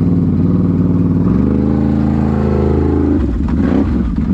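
Can-Am Renegade XMR 1000R's V-twin engine through an SLG Sniper Series slip-on exhaust, pulling hard under throttle. Its pitch climbs steadily for about two seconds, then drops abruptly about three seconds in with a brief clatter, and settles back to a steady run.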